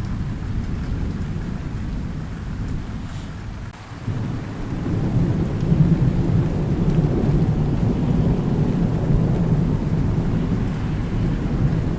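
Thunder rumbling over steady rain. The rumble eases to a short lull about four seconds in, then a new long peal builds and rolls on to the end.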